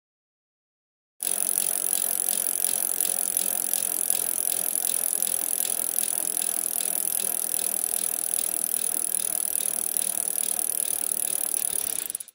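A steady, rapid mechanical rattling or clicking that starts abruptly about a second in and cuts off suddenly near the end.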